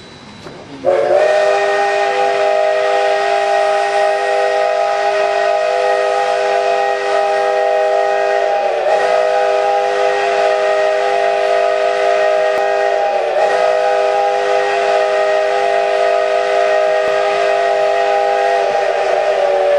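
Steam whistle of Cumbres & Toltec K-36 No. 488, a 2-8-2 Mikado locomotive, blown as a tribute in one long unbroken chime chord. It starts about a second in, several tones held steady, wavering briefly twice midway and settling slightly lower in pitch near the end.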